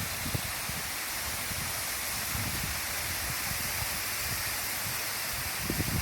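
Waterfall: a steady rush of falling water, with irregular low rumbles of wind on the microphone.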